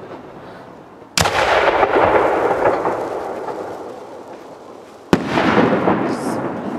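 Two aerial firework shells bursting, one sharp bang about a second in and another about four seconds later, each followed by a couple of seconds of fading echo.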